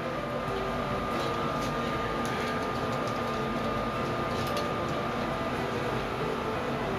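Steady mechanical hum with a thin, even whine running throughout, with a few faint rustles and soft handling clicks.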